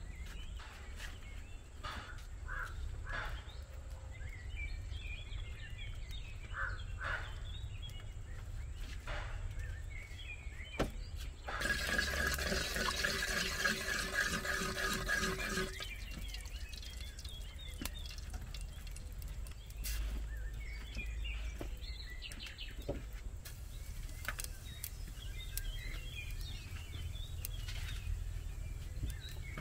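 Wooden spoon stirring liquid in a clay cooking pot, a rhythmic scraping and sloshing for about four seconds around the middle. Birds chirp now and then, with a few scattered faint clicks.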